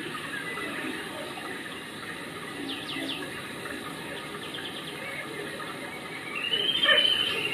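Steady rush of running water, with a few short bird chirps about three seconds in and a louder high call that rises and falls near the end.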